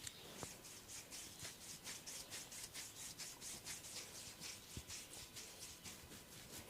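Soft, fast rhythmic rubbing and scratching strokes through hair on a scalp during a head massage, about four or five strokes a second, with a few faint taps.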